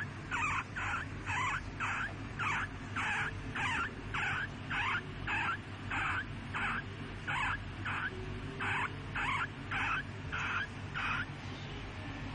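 A sleeping hamster snoring: short, wheezy squeaks with each breath, a little over two a second, evenly spaced, that stop about a second before the end.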